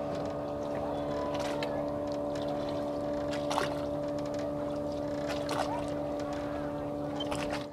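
Small boat engine running steadily at a constant pitch as the wooden boat moves across the lake, with a few faint knocks.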